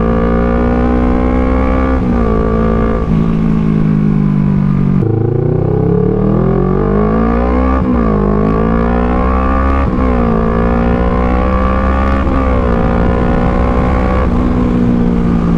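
Kawasaki Z650's parallel-twin engine pulling on the road through an aftermarket Orion full exhaust. Its note rises and drops several times as the rider works the throttle and gears, with a deep dip and climb about five seconds in.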